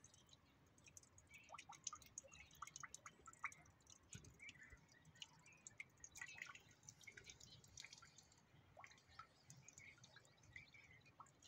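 Faint, irregular sipping and dripping of a donkey drinking from a water trough, with small splashes as its muzzle works the water.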